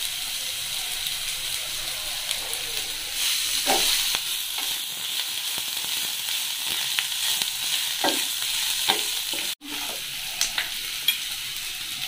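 Onions sizzling in hot oil in a small pan, a steady hiss with scattered clicks and scrapes as they are stirred. The sound cuts out for a moment about nine and a half seconds in.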